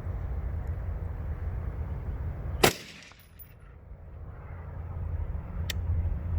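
A single AR-15 rifle shot in 5.56/.223, a sharp crack about a third of the way in, over a steady low rumble. A faint click follows about three seconds later.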